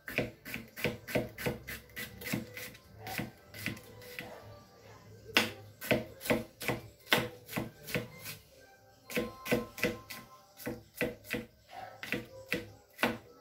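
Kitchen knife chopping green bell pepper on a plastic cutting board: quick runs of sharp knocks, about four a second, pausing briefly twice.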